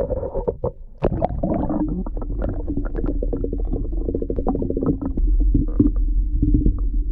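Muffled underwater sound picked up by a submerged camera: a steady low rumble with many small clicks and knocks, and nothing in the higher range.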